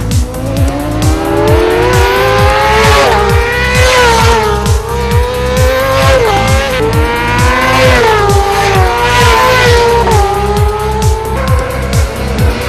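A race motorcycle engine at high revs, its pitch climbing and then dropping sharply at gear changes about three times, over dance music with a steady kick-drum beat.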